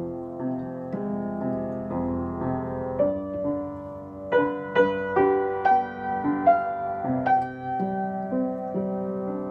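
Upright piano played solo: held chords in the middle and low range, with a run of brighter, louder struck higher notes about four to seven seconds in.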